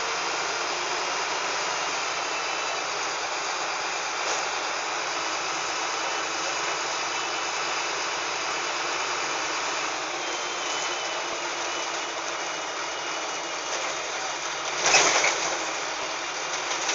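Steady engine and road noise heard from inside a LiAZ-5256 city bus, with one short, loud rush of noise about fifteen seconds in.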